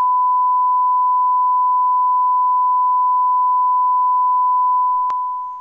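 Colour-bars test tone: a single steady beep at one pitch that holds, then fades out near the end, with one short click just before it stops.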